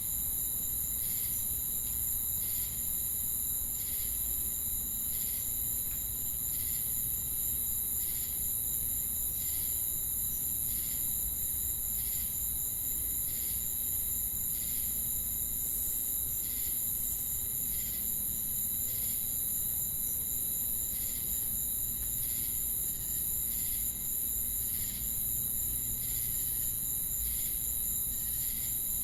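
Chorus of crickets and cicadas: a continuous very high-pitched trilling over a steadier lower tone, with a chirp repeating regularly a little more than once a second.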